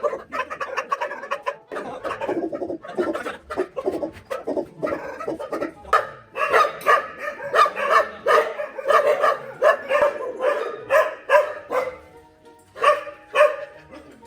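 Large shelter dogs barking over and over in their kennels, several short barks a second at the busiest, with background music under them.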